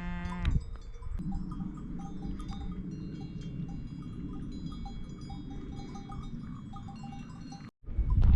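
Cowbells on grazing cattle clinking irregularly over a steady low rushing background, just after a cow's moo tails off. Near the end the sound drops out for a moment and a much louder rushing noise starts.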